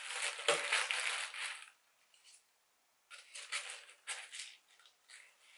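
Tissue paper and cards rustling as they are handled and packed into a gift box, in two spells: through the first second and a half, then again from about three seconds in, with a soft knock about half a second in.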